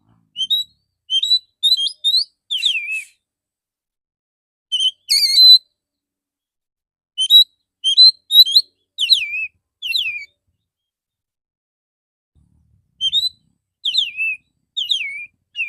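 Male oriental magpie-robin singing: phrases of loud, sharp, swooping whistled notes, separated by pauses of one to three seconds.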